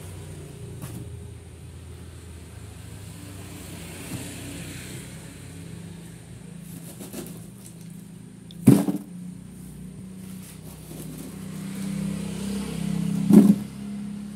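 A motor hums steadily, growing louder near the end, with two loud knocks, one about nine seconds in and one near the end.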